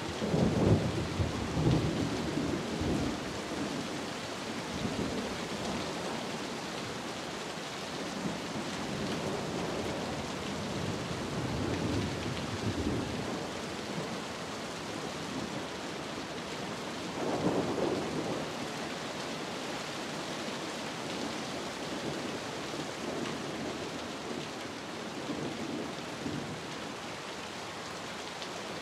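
Steady rain with rolling thunder. A loud rumble breaks in at the start and rolls on for several seconds, and a second, shorter rumble comes a little past the middle.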